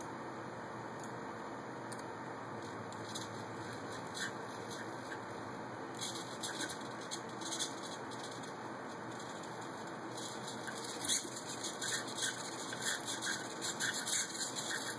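Hobby RC servo motors in a small robot arm chattering and whirring in short, faint spurts as the arm moves, over a steady background hiss. The spurts grow busier about ten seconds in.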